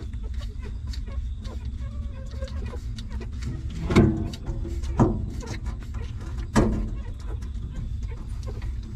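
Newborn puppies nursing, with small wet suckling clicks and three short whimpers, about four, five and six and a half seconds in, over a steady low rumble.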